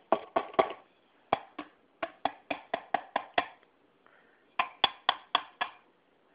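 Wooden spoon tapping on a bowl: short runs of sharp, ringing taps with brief pauses between them, the longest run at about four or five taps a second.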